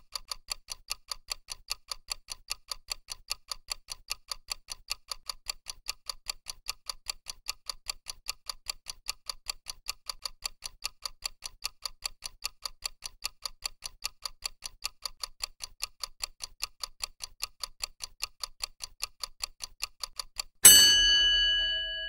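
Clock ticking sound effect for a countdown timer: quick, even ticks. Near the end a loud bell-like ring with several tones marks the end of the countdown, fading away before it cuts off.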